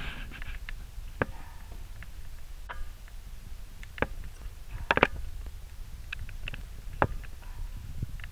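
Footsteps climbing carpeted stairs, a sharp knock about every one to two seconds, over a steady low rumble from the handheld camera moving.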